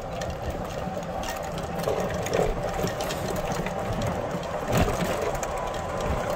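Golf cart driving along a paved path: its motor runs steadily with a faint constant whine, over a low rumble and many small knocks and rattles from the cart.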